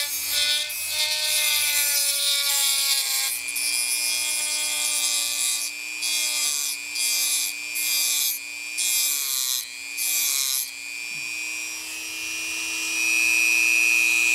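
Dremel rotary tool with a cutting wheel running at a steady high whine while its wheel grinds into a steel bearing race stuck fast on the crankshaft, a harsh grinding hiss. The grinding comes and goes in several short bursts a little past the middle, then the tool whines on freely.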